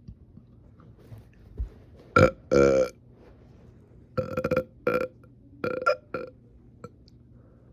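A person burping loudly several times, about six burps in a row. The longest, near the start, has a croaky pitched rattle.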